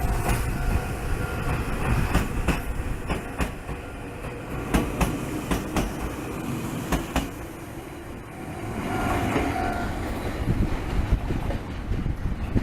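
Shintetsu electric train running on the Ao Line, its wheels clacking over rail joints in pairs of clicks over a steady rumble. About nine seconds in, a steady motor whine rises briefly.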